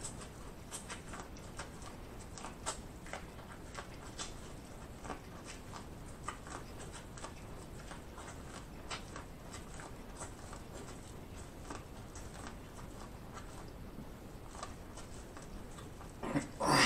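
Close-miked eating of corn on the cob: scattered wet mouth clicks and smacks from biting and chewing, with a louder, longer mouth sound near the end.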